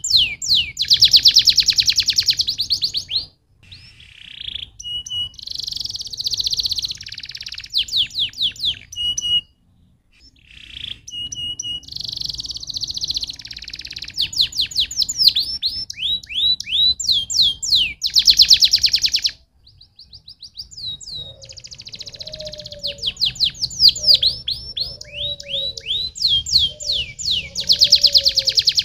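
Domestic canary singing: long phrases of very fast trills and quick rising and falling whistled notes, broken by a few short pauses.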